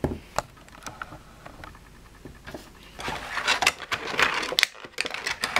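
Plastic blister packaging crinkling and clicking as small erasers are handled and pressed out of it: a few light clicks, then a denser crackling from about three seconds in.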